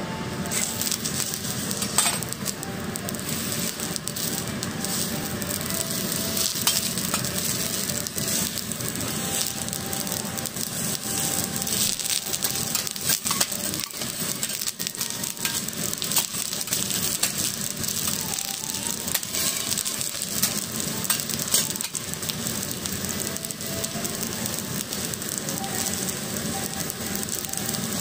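Whole shiitake mushrooms sizzling on a hot teppanyaki steel griddle: a steady sizzle with frequent crackling pops and a few louder snaps.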